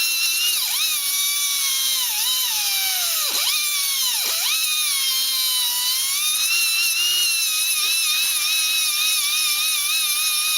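High-speed electric cutter whining steadily as it cuts through a protruding chassis screw, its pitch dipping briefly under load about two, three and four seconds in.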